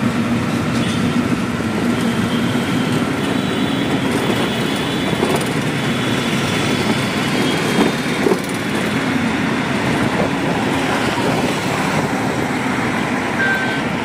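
Steady rush of engine and road noise from a vehicle riding through city traffic, with a short high beep near the end.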